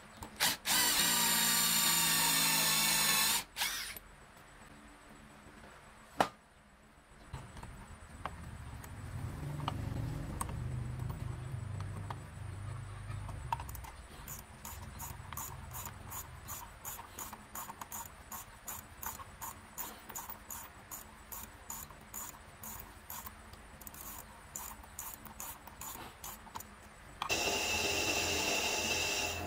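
An electric drill with a step bit runs for about three seconds, boring into a wooden disc with a steady motor whine. A sharp click follows, then a stretch of low rumbling and then rhythmic scraping strokes, about two a second. Near the end a bench drill press starts up with a steady whine and drills into the wood.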